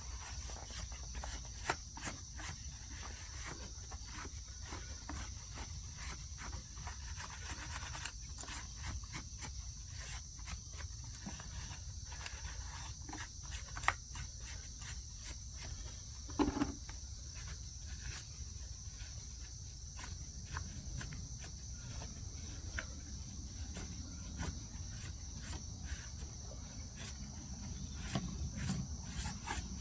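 Steady high-pitched drone of crickets or other insects, with scattered small clicks and knocks as parts of an electric chainsaw are handled and sawdust is cleared out of it.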